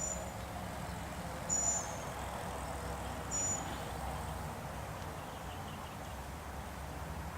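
Outdoor ambience: a steady low rumble with short high chirps, three of them about a second and a half apart.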